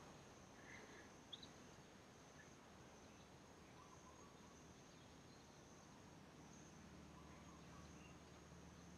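Near silence with a faint, steady high-pitched insect trill, and a few short high chirps near the start.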